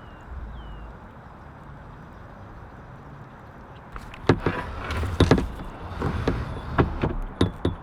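A quiet low rumble, then from about four seconds in a run of irregular sharp knocks and clatter on a kayak, several in quick succession.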